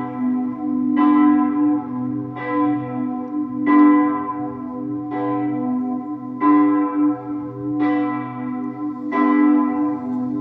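Church bells ringing: a fresh strike roughly every second and a half, each one ringing on over a steady, lingering hum.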